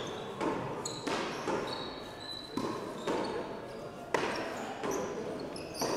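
A frontón rally: about half a dozen sharp smacks as the hard ball is struck by hand and rebounds off the wall and floor, irregularly spaced a fraction of a second to over a second apart, with short high squeaks of sneakers on the smooth court floor in between.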